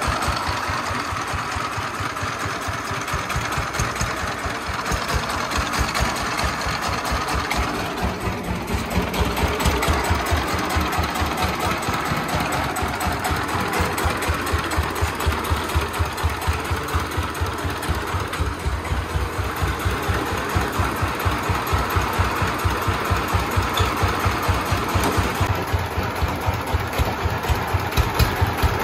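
Single-cylinder 24 hp diesel engine of a sand-laden công nông three-wheeled farm truck running, with an even, rapid chugging beat.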